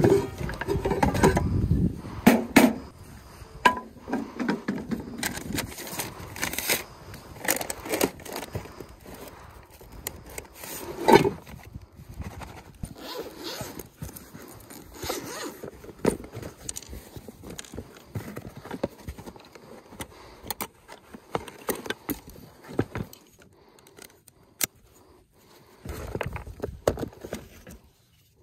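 Pots, pans and utensils clanking and rattling in a plastic tote as it is rummaged through, then a zippered gear case being opened and the tools inside handled, with scattered knocks and clicks.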